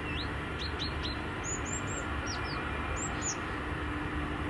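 Small songbirds calling: short, high whistled notes, some sliding down and some sliding up, coming in little runs of two or three, over a low steady background noise.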